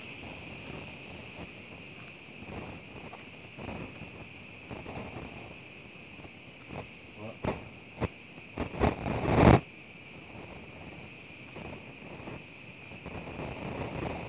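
Steady chorus of singing insects: a continuous high shrill hum. A few sharp knocks come between about seven and ten seconds in, the loudest near nine and a half seconds.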